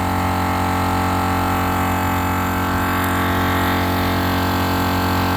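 Morrflate 10.6 Pro air compressor running steadily under load, inflating four large truck tires at once through a common manifold, nearing the end of a fill at about 38 to 39 psi.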